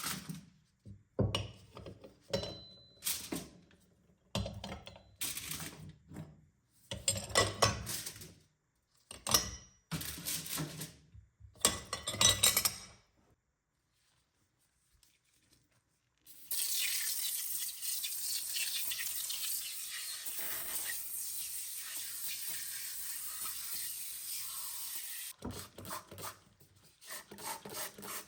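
Kitchen sink cleaning: short bursts of dishes clattering and scrubbing, then a tap running steadily for about nine seconds, then quick rubbing strokes near the end.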